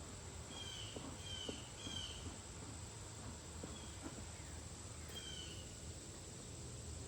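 A bird giving short, falling whistled call notes, a burst of three in the first two seconds and a few more later, over a steady high hiss and faint low rumble of outdoor ambience.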